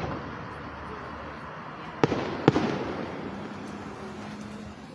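Aerial firework shells bursting: one bang at the start, then two more about half a second apart around two seconds in, each trailing off in an echoing rumble.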